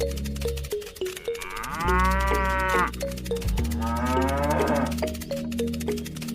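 A cow mooing twice, each moo rising then falling in pitch, over background music with a steady beat.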